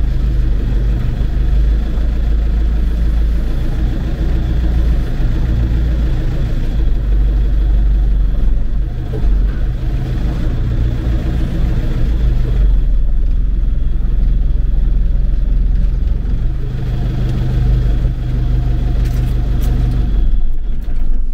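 Mercedes-Benz MB-trac tractor's diesel engine running steadily, with a deep, even hum.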